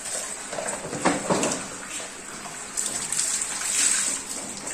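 Water splashing on a tiled bathroom floor around a wet husky being bathed, in short bursts about a second in and again for a second or so near the end.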